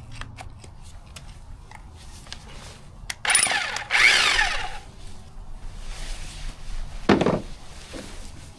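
Rotary hammer with a greased chisel bit chipping into concrete block in two short bursts a little after three seconds in, its pitch falling as it runs down, then a brief lower burst near seven seconds. Faint clicks and taps in between.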